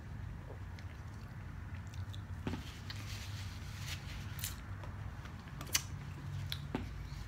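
Close-up eating sounds: a sip and swallow, then quiet chewing, with a few sharp light clicks as a plastic cup is set down and a plastic fork touches a styrofoam takeout container, over a steady low hum.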